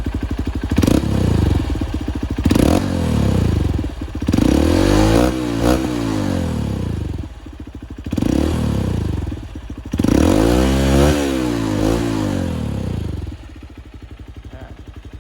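Honda CRF150L's single-cylinder four-stroke engine revved about five times through an Exos X6 exhaust with its silencer insert removed. The pitch rises and falls with each rev, the longest two in the middle and later on, and it drops back to idle near the end.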